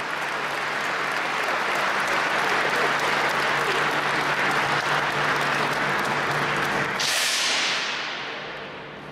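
Audience applauding. A sudden hiss-like burst comes in about seven seconds in, and the clapping dies away near the end.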